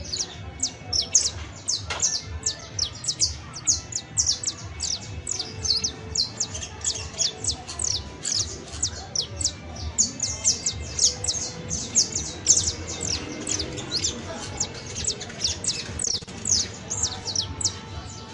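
Saffron finch (canario criollo) singing: an unbroken run of rapid, high, downward-sweeping notes, about four or five a second.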